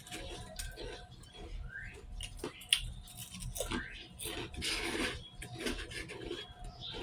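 Close-up eating sounds: irregular wet smacks, clicks and crunches of chewing.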